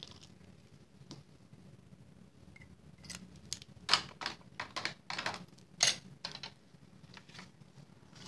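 Small craft tools and scraps being handled on a plastic cutting mat: a run of sharp clicks, taps and scrapes in the second half, two of them louder.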